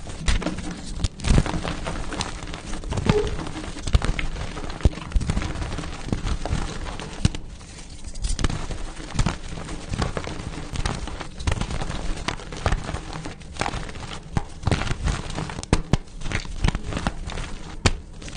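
Pasted gym chalk blocks being crushed: a dense, irregular run of crunchy crackles and sharp snaps as the chalk crumbles.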